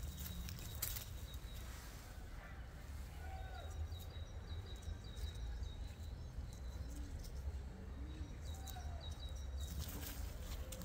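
Outdoor background noise: a steady low rumble with faint bird chirps and a few light ticks.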